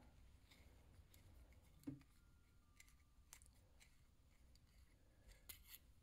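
Near silence with a few faint, short metal clicks and ticks: the flint spring screw of a Zippo lighter insert being unscrewed by hand.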